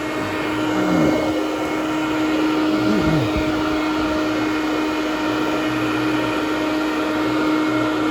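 Hoover Conquest Widetrack commercial upright vacuum, a direct-air machine with its fan just above the carpet blowing into the bag, running steadily with a constant hum as it is pushed over low-pile carpet tile. Two short falling sweeps sound about one and three seconds in.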